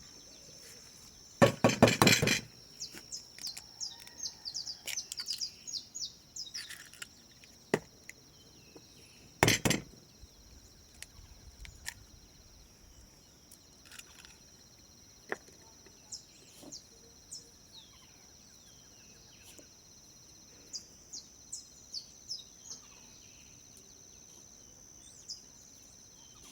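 A steady high insect chorus, crickets, with many short bird chirps over it. Two loud, harsh, brief sounds of unclear source come about two seconds in and again near ten seconds in.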